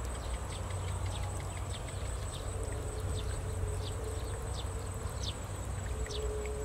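Outdoor insect and bird ambience: a steady high insect drone with short, falling high chirps repeating about twice a second, over a low steady rumble.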